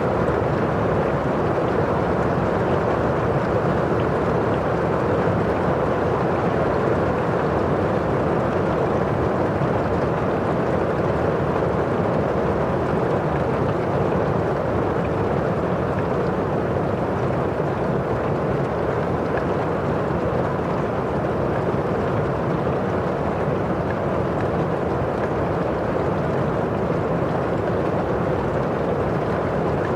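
Steady rain falling on a windowpane, an even, unbroken wash of rain noise that is fuller in the low and middle range, with no single drops standing out.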